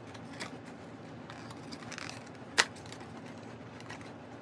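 A small paperboard product box being opened by hand: faint rustles and light clicks of the card, with one sharp click about two and a half seconds in.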